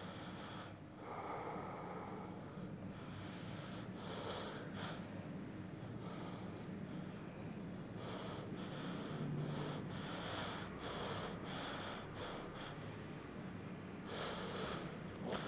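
A man breathing heavily and unevenly through the nose and mouth, a hissy breath every second or two.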